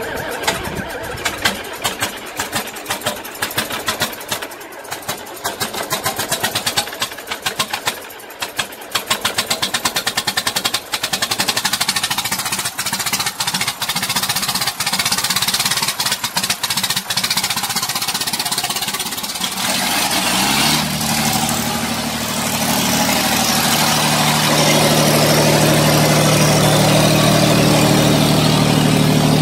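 John Deere 4430's six-cylinder diesel on a cold start, firing unevenly in rapid ragged pulses at first. About twenty seconds in it catches and settles into a steady, even run.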